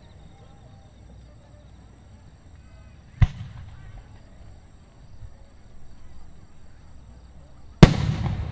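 Fireworks shells bursting overhead: a sharp boom about three seconds in, and a louder boom near the end that rumbles on afterwards. Faint crowd chatter runs underneath.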